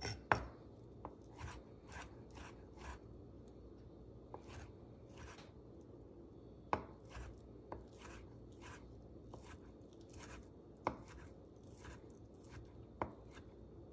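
Chef's knife dicing cooked chicken thigh on a wooden cutting board: irregular light knocks of the blade striking the board, with a few sharper chops among them.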